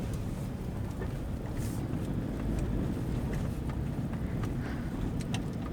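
Steady low road and engine drone inside the cabin of a Toyota Fortuner under way, its 2KD-FTV 2.5-litre four-cylinder turbodiesel running under light load.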